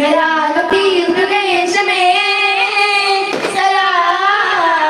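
Children's voices singing a daff muttu devotional song together in long, wavering held notes, with a few sharp strikes on daff frame drums.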